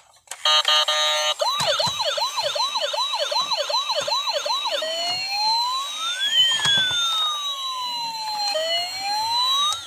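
Toy police car's electronic siren. It gives a brief steady horn-like tone, then a fast yelp of about three rising sweeps a second, and about halfway through switches to a slow wail that rises and falls.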